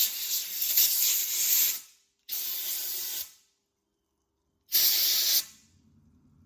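Compressed-air blow gun hissing in three separate blasts, each about a second long, blowing out the parts of a machine's counterbalance cylinder to clean them.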